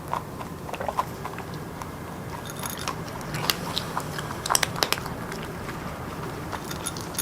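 A pet crunching and chewing its food in irregular bites, with a run of louder crunches around the middle.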